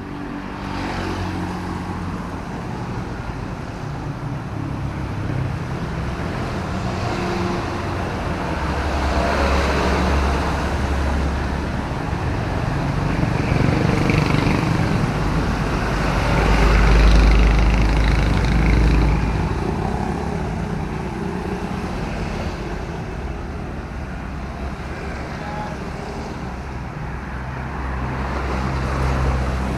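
Road traffic passing on a wet city road in drizzle: engine rumble and tyre hiss swelling as vehicles go by, the loudest one passing just past halfway through.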